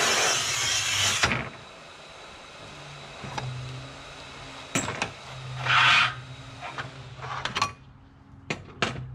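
Scoring wheel of a Rubi Slim Cutter rail tile cutter scratching along a large-format tile, a loud, even scraping hiss that stops about a second in. After it comes a short, loud scrape near the middle and several sharp clicks and knocks as the cutter and tools are handled.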